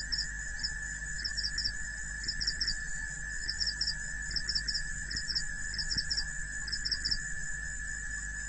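Insects chirping: short high chirps in groups of two or three, repeating about once a second over a steady high-pitched drone.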